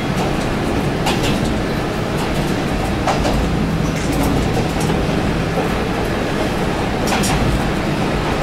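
KiHa 200 diesel railcar running along the line, heard from inside the car: a steady rumble of engine and wheels on rail, with a few sharp clacks as the wheels cross rail joints.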